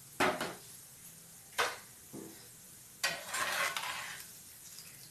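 A steel spoon scrapes and knocks against a frying pan, twice briefly and then for about a second near the three-second mark, as a disc of gram-flour sev is turned in hot oil. The oil sizzles faintly underneath.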